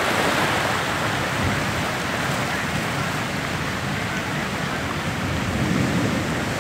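Rough sea surging over the shore, with seawater rushing and churning across flooded land in a steady wash of noise. This is coastal flooding by the sea.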